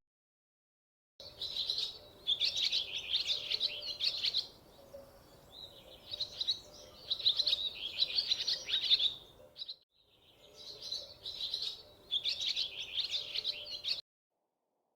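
Small birds chirping in repeated bursts of quick, high twittering with short pauses between them; the sound cuts in about a second in and stops abruptly about a second before the end.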